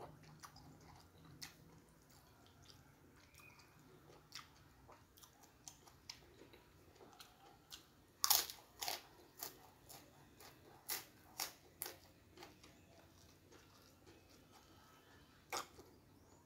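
Crisp fried kerupuk cracker being bitten and chewed with mouth open. A loud first crunch comes about eight seconds in, then a quick run of about seven more crunches over the next four seconds, with softer chewing clicks around them and one more crunch near the end.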